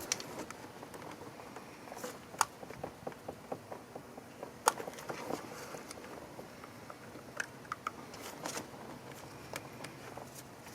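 Long-nose pliers clicking and scraping against metal down a spark plug well as a stuck rubber boot is twisted back and forth to work it loose. The sound is a scattered string of sharp clicks, with the two loudest about two and a half and four and a half seconds in.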